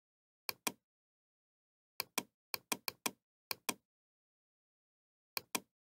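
Computer mouse buttons clicking: six pairs of short, sharp clicks spread irregularly over a few seconds, with dead silence between them.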